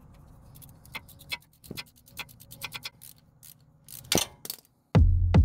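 Ratchet wrench with a 10 mm hex bit clicking irregularly as it works the front differential drain plug. Near the end a much louder, deep, steady sound cuts in.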